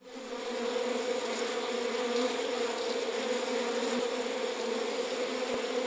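A mass of honeybees buzzing in one steady, unbroken hum, rising in over the first half second.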